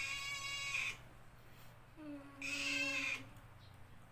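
An animal calling twice, each call about a second long and the two about two seconds apart.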